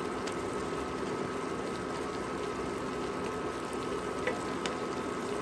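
Pork chops simmering in a soy-based bistek sauce in a wok, a steady bubbling sizzle, with a few light taps of a wooden spatula against the pan.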